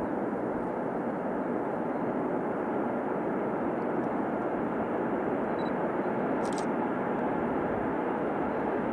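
2TE116U twin-section diesel-electric locomotive running as it approaches with a freight train, a steady drone that grows slowly louder.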